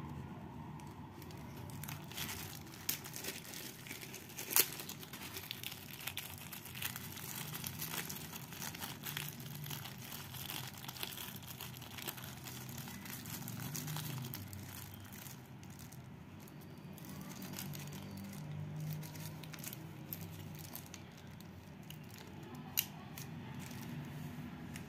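Clear plastic packaging bag crinkling and rustling as it is handled and opened, with scattered sharp clicks; the loudest click comes about four and a half seconds in, another near the end.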